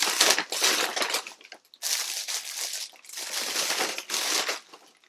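Food packaging crinkling and rustling in three spells of a second or so each, as small ingredient packets are packed back into a meal-kit bag.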